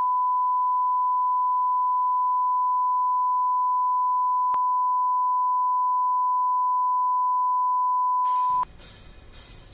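Steady 1 kHz test-pattern tone, a single pure beep held at one pitch, sounding under a TV test card. It cuts off suddenly near the end, leaving faint hiss.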